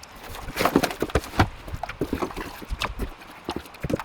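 Irregular knocks and clatter of a new sump pump and its parts being handled, several sharp hits a second with no steady rhythm.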